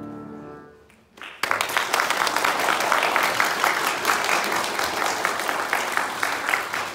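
The final chord on a grand piano rings and dies away in the first second; after a short pause, an audience applauds.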